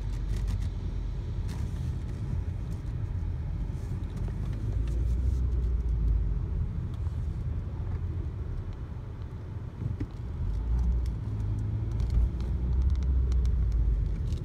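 Low rumble of a car's engine and tyres heard from inside the cabin while driving slowly, swelling louder twice.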